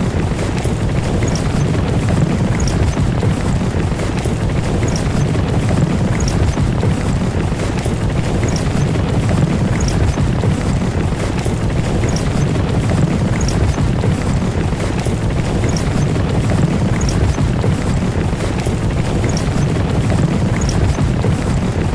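Horse-drawn carriage on the move: a steady, heavy rumble of rolling wheels, with faint recurring ticks roughly once a second.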